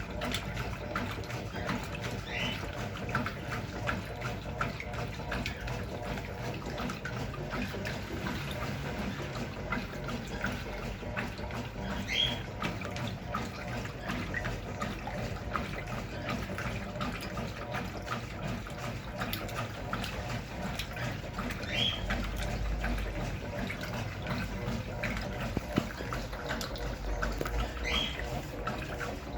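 Brastemp Clean 6 kg washing machine filling with water: a steady rush of water running into the tub.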